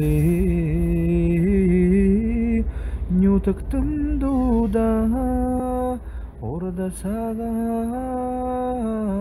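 Background music: a voice singing a slow, chant-like melody of long held notes that waver slightly and glide from one pitch to the next, with short breaks between phrases.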